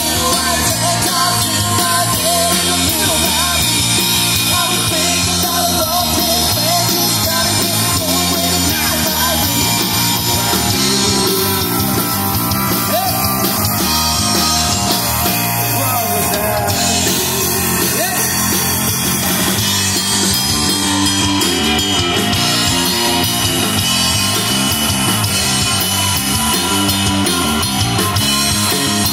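Live rock cover band playing: electric guitar, bass and drum kit, amplified through QSC CP12 powered PA speakers and heard from out in the audience area.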